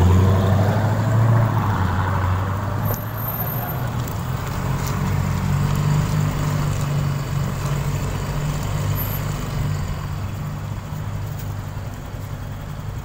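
A vehicle engine running steadily at low speed. It is loudest at first and slowly dies away toward the end.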